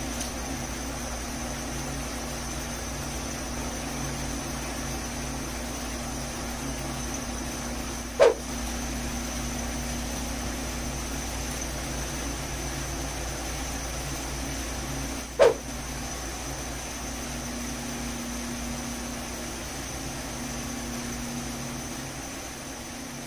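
Steady room hum and hiss with a faint high whine, broken twice by a short, loud pop about seven seconds apart.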